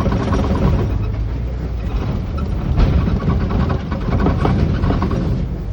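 Safari ride vehicle running and rattling as it drives over a rough track, heard from on board, with a steady low engine rumble and irregular clattering of the body.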